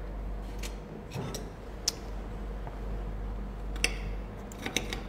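Knife and fork clicking and scraping on a plate as a fish steak is cut and eaten: scattered light clicks, the sharpest about two seconds in and near four seconds, with a quick cluster near the end, over a steady low hum.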